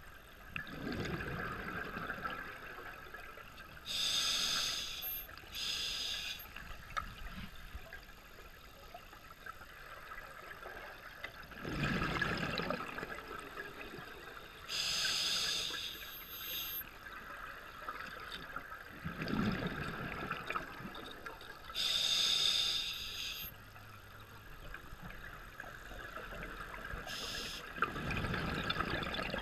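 Scuba diver breathing through a regulator underwater: short hissing inhalations alternate with bubbling exhalations, a breath about every eight to ten seconds, some three full breaths in all.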